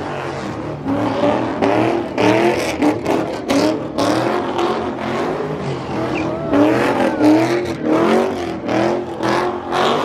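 Car engine revving up and down again and again as the car spins donuts, its rear tyres spinning and screeching in a cloud of smoke.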